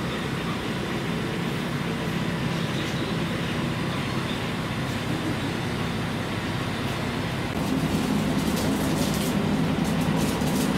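Inside a Kumagawa Railway KT-500-series diesel railcar: the engine runs with a steady hum, then grows louder about seven or eight seconds in as the car pulls away.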